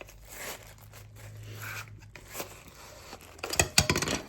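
Plastic packaging being handled, rustling and tearing, then a quick run of sharp clicks and rattles near the end as the camping light is taken out.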